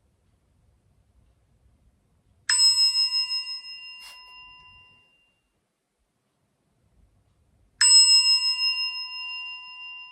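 A small metal bell struck twice, about five seconds apart, each ring sounding at once and dying away over two to three seconds with a wobble.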